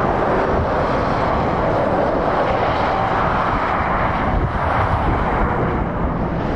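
Steady road-traffic noise from lorries and cars driving past on a dual carriageway: a continuous rush of tyre noise over a low diesel engine rumble.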